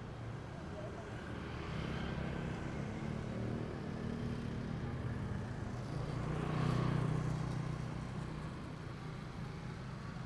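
Motor vehicles passing on a city street: engine hum and tyre noise build up, the loudest vehicle goes by close about two-thirds of the way through, then fades away.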